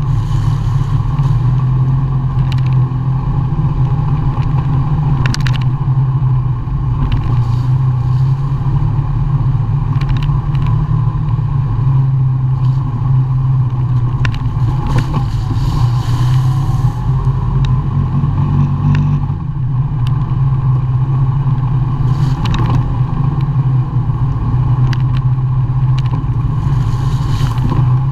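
ATV engine running steadily under way, heard from the machine itself, with occasional short knocks and rattles from the rough trail. The engine eases off briefly about two-thirds of the way through.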